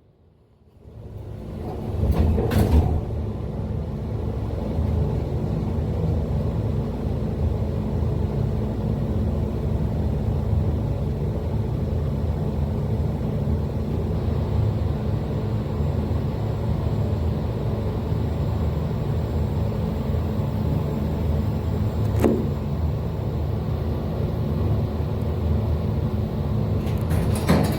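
Elevator car travelling in its shaft, heard through the cab's floor vent: a steady low rumble with rushing air noise that builds up over the first couple of seconds, and a single sharp click about 22 seconds in.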